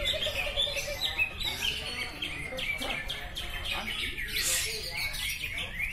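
Caged cucak ijo (green leafbirds) singing together in a competition round: a dense, overlapping run of fast chirps, trills and whistled slurs.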